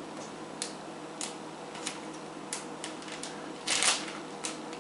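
Plastic bag of shredded parmesan cheese being handled and opened by hand: scattered short crinkles and clicks of the plastic, with a longer, louder crinkle nearly four seconds in.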